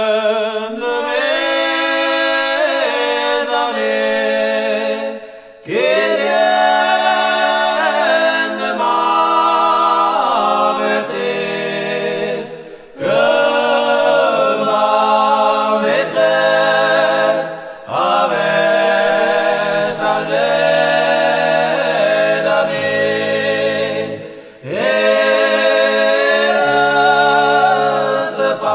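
Four men singing a cappella in traditional Pyrenean (Gascon, Béarnais/Bigourdan) polyphony, several voices in close harmony. The song moves in long sung phrases, each broken by a short breath pause every five to eight seconds.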